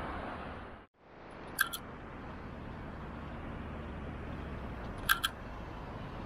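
Steady low rumble of street and tram traffic at a tram stop as trams approach. The sound drops out briefly just before a second in. Two short, sharp double clicks stand out above the rumble, about a second and a half apart from the start and again near five seconds.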